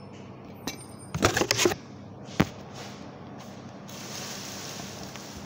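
Thin plastic food-prep glove crinkling as it is pulled onto a hand: a short burst of crackly rustling about a second in, with a click just before it and a sharp tap about a second after.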